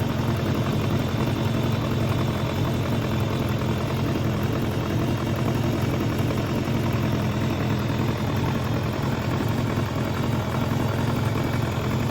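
Kawasaki ZRX1200R inline-four motorcycle engine running steadily at an even, unchanging speed.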